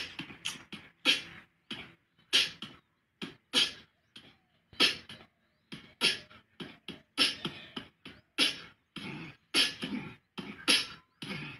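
A beatbox-style percussive beat, vocal-sounding drum hits in a steady rhythm: a strong hit about every 1.2 seconds with lighter hits in between.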